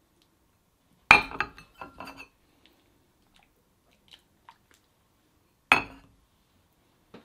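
Ceramic soup bowls set down on ceramic saucers: two sharp clinks, about a second in and again near six seconds, with a few lighter clinks and taps of the dishes in between.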